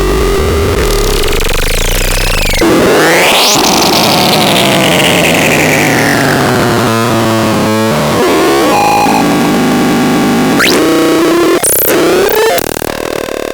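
Loud, harsh synthesized electronic noise from a BEXDEX: a sweep that rises sharply a few seconds in and then slowly falls, breaking into a fast stuttering pattern, with steadier buzzing tones near the end.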